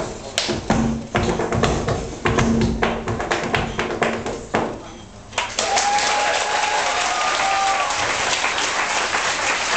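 Hard-shoe step-dance taps and stamps on a wooden stage, irregular and quick, with music behind them. About five seconds in they stop, and the audience breaks into steady applause with a whistle from the crowd.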